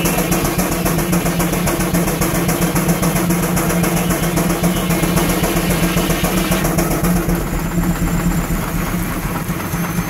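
Frick 8x10 steam traction engine running a belt-driven sawmill, its exhaust beating in a rapid, even rhythm over a steady low running sound. The sharp exhaust beat softens about two-thirds of the way through.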